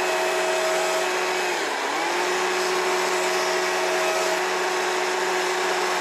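Chainsaw running at full throttle, cutting a shallow line around a small log. Its whine dips in pitch briefly about two seconds in, then steadies again.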